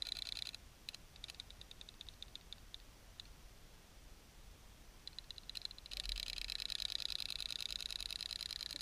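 Battery-powered robotic clownfish toy ticking rapidly and evenly as its tail motor wags the tail, heard underwater. The ticking fades after about half a second, stops for a couple of seconds in the middle, and comes back louder about two-thirds of the way through.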